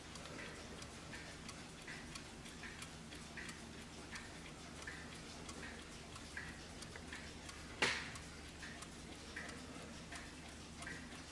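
Warmink mantel clock's mechanical movement ticking steadily, about four ticks every three seconds. A single sharp knock about eight seconds in, louder than the ticking.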